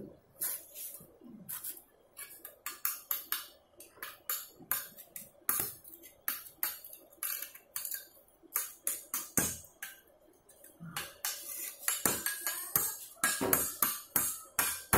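Stick-welding electrode on a ZiziWeld ARC 2500 mini inverter arc welder being tapped and scratched on angle iron to strike an arc: irregular sharp clicks and brief crackling pops, coming thicker toward the end.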